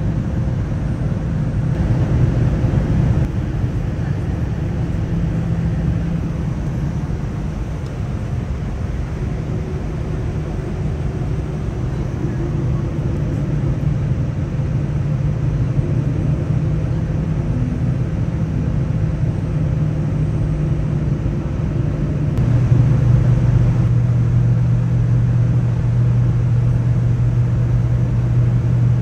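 Airliner cabin noise on descent: a steady rumble of jet engines and rushing air with a low hum, growing louder about 22 seconds in.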